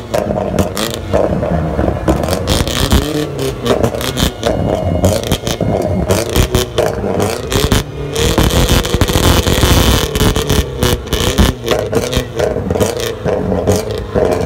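A car engine revved hard and repeatedly, with a dense run of sharp cracks and pops throughout and a louder hissing stretch about eight seconds in.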